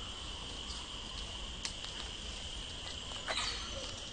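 Insects trilling in one steady high-pitched drone, with a few faint clicks and a short, louder scratchy sound a little over three seconds in.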